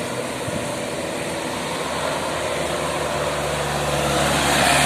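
A bus passing close by: its engine drone and tyre noise build up and peak near the end as it goes past.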